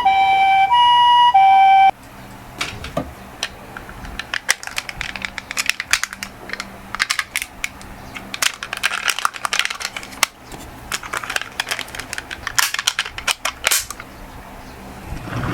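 Toy ambulance's electronic hi-lo 'pee-po' siren, alternating two tones, cutting off abruptly about two seconds in. Then an irregular clatter of small clicks and taps from the toy minicars on the slope, and a rising tone starts near the end.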